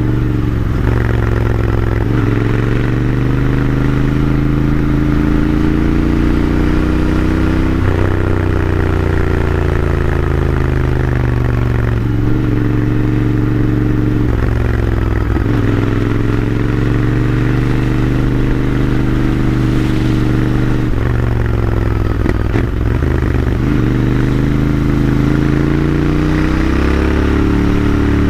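Royal Enfield Interceptor 650's air-cooled parallel-twin engine and stock exhaust running under way, heard from the rider's seat. Its pitch rises and falls several times, with brief breaks every few seconds as the throttle opens and closes.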